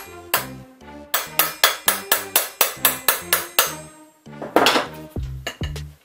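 Hammer striking a bolt threaded onto the axle of an e-bike geared hub motor to knock the motor open: a quick, steady run of sharp metal blows, about four a second, stopping just under four seconds in. This is followed by a scraping rustle and a few duller knocks, with background music throughout.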